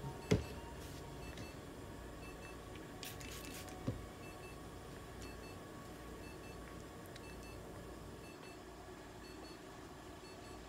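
Faint electronic beeping from clinic equipment: a short double beep repeating about once a second. A sharp knock comes just after the start, and a brief hiss and a smaller knock come around three to four seconds in.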